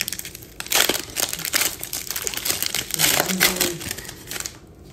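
Foil wrapper of a trading-card pack being torn open and crinkled, in irregular crackling bursts that are loudest about a second in and again around three seconds in.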